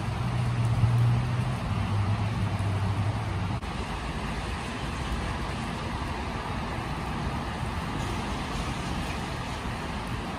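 Steady rain falling on wet paving, an even hiss. For the first few seconds a low engine hum runs under it, dropping slightly in pitch partway through, then cuts off suddenly.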